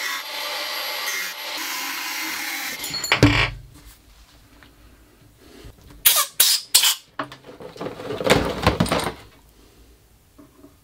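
Cordless angle grinder cutting through a metal rod, a steady grinding that stops about three seconds in with a thump. Later a quick run of sharp knocks and some scraping as the rod is handled and pushed into a silicone part.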